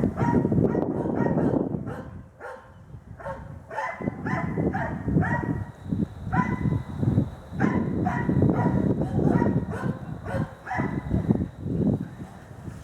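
Hunting dogs barking repeatedly and rapidly, baying a wild boar.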